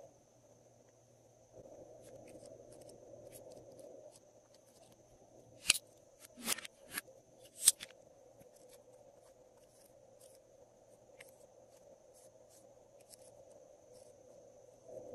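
Small plastic bottles being handled, with about four sharp plastic clicks and pops in quick succession around six to eight seconds in as a cap is pulled off. Otherwise faint handling ticks over a low steady hum.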